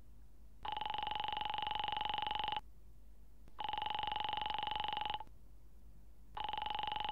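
Telephone ringing tone heard down the line while the called number rings: a buzzing ring about two seconds long, three times, with about a second of silence between rings.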